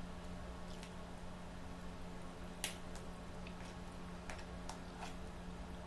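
Faint eating noises of small clicks and soft smacks, with one sharper click about two and a half seconds in, over a steady low hum.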